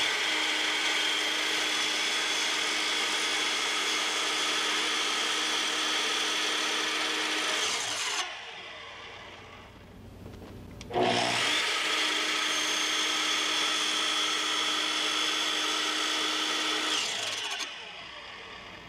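Makita sliding miter saw running twice, each time for about seven to eight seconds with a steady whine, its blade cutting slots into a cherry bent-wood lamination. After each run the motor winds down over a couple of seconds.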